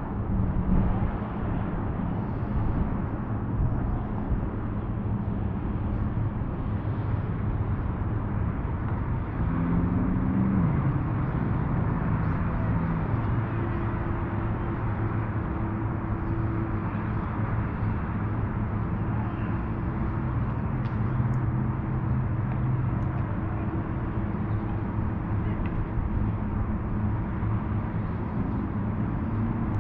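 Steady outdoor drone of distant engines, road traffic and jet skis on the river, with several low engine tones held throughout; one engine note rises and shifts about ten seconds in.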